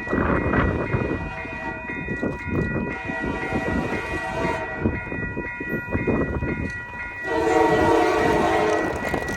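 A freight-style train rolls past with its wheels rumbling and clattering on the rails. About seven seconds in, a diesel locomotive horn sounds one long blast lasting nearly two seconds.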